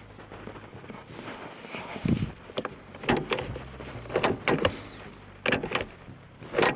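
A series of sharp mechanical clicks and clunks, some in quick pairs, about one every second, over a faint low steady hum.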